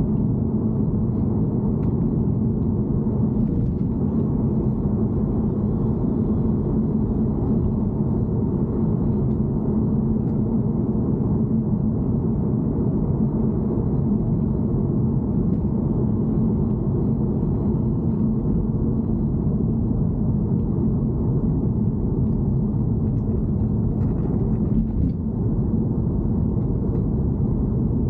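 Steady low rumble from an E90 car with a constant low hum running under it, the abnormal noise the owner is recording.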